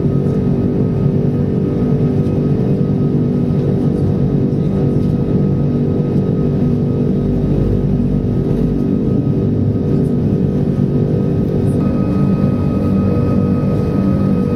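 Steady cabin noise of an Airbus A340-500's Rolls-Royce Trent 500 engines climbing just after takeoff: a dense low rumble with a few steady hum tones, and a thin high tone joining about twelve seconds in.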